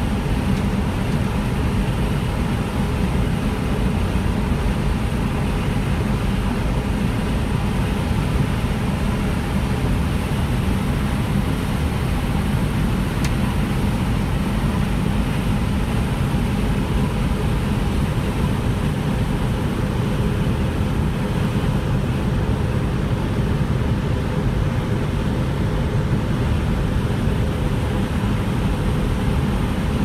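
Corn-harvesting farm machinery running steadily: an unbroken heavy engine drone with a faint steady whine over it.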